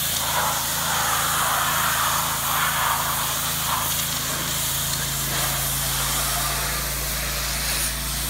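Pressure washer engine running steadily while the wand's high-pressure spray hisses against cedar shingles, the spray loudest in the first four seconds. About five seconds in the engine's note changes and settles into a steadier hum.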